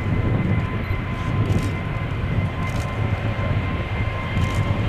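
Airbus A380-841's four Rolls-Royce Trent 970 engines running as the jet rolls along the runway: a deep, steady rumble with a thin, steady whine over it.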